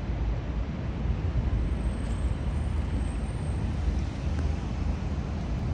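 Steady low rumble of city street traffic while a CAF Urbos 3 light rail tram approaches slowly along its track.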